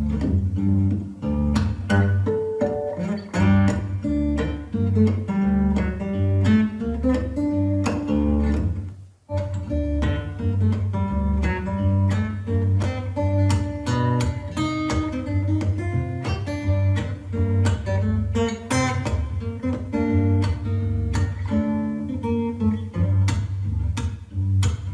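Guitar-led instrumental music with a heavy bass line, played back through a portable Bluetooth speaker at half volume in a speaker audio test. The sound cuts out briefly about nine seconds in.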